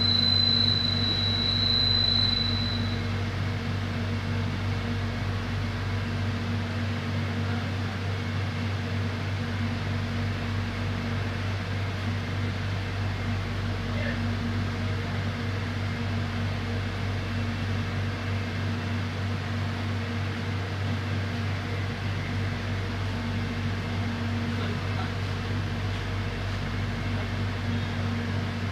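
Steady hum of an electric airport train's air conditioning and onboard equipment while it stands at a station with its doors open. A high steady tone stops about two seconds in.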